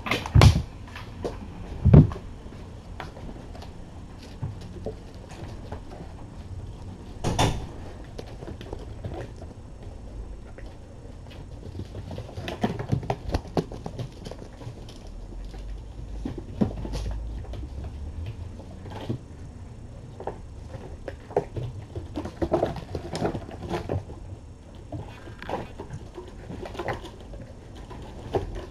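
Kittens scampering and playing: an irregular patter of small paws with knocks and thumps, a few louder thumps near the start and again around seven seconds in.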